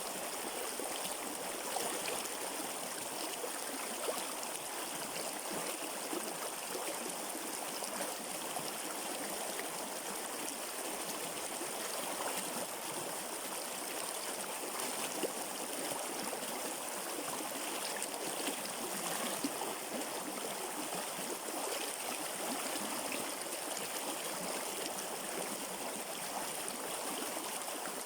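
River water flowing in a steady, even rush, with a few faint sharp splashes on top.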